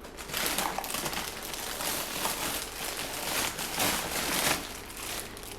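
Plastic food packaging crinkling and crackling as it is handled, with irregular rustling that dies down near the end.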